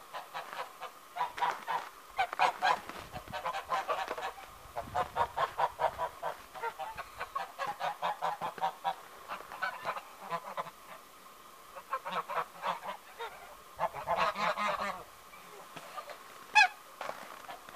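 Domestic geese honking in two long runs of quick, short calls with a brief pause between, then one sharp, loud call near the end.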